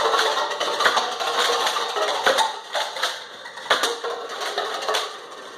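Toy Nerf blaster being fired at a stack of plastic cups, with sharp knocks about every second and a half among the clatter of cups tumbling and hitting each other.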